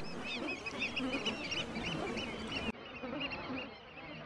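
Dense chatter of many short, overlapping high chirps over a low buzzing hum, growing fainter near the end.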